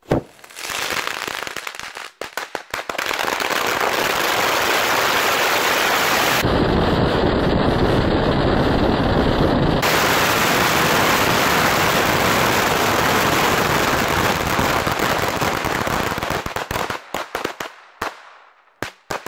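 Thousands of bundled firecrackers going off at once: a sudden bang, then a dense, continuous crackle of explosions that runs on for about seventeen seconds and thins near the end to a few last separate pops.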